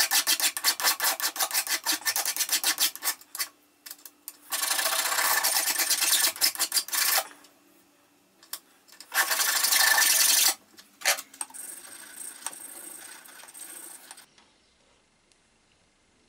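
Hand file rasping on a small metal block clamped in a bench vise: first quick short strokes, then longer drawn strokes with pauses between, fading to light scraping, as the part is filed down to a tight fit.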